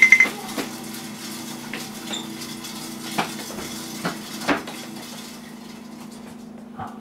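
Dishes and cutlery clinking and knocking on a kitchen counter, a handful of separate clinks with the loudest about four and a half seconds in, over a steady low hum. A rapid electronic beeping cuts off just after the start.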